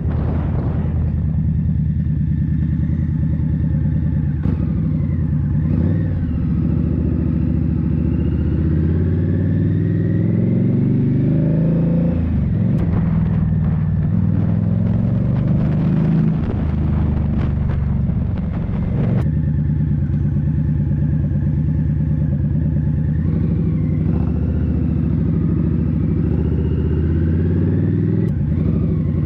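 Indian Scout Bobber's V-twin engine running under way, its pitch rising and dropping back several times as the bike accelerates and shifts gears. A few sharp clicks come through in the middle.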